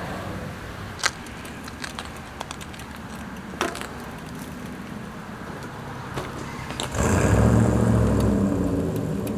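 A few sharp clicks and knocks from a loaded touring bicycle as it is handled and set rolling. About seven seconds in, a motor vehicle's engine comes up loud as it drives past, then slowly eases off.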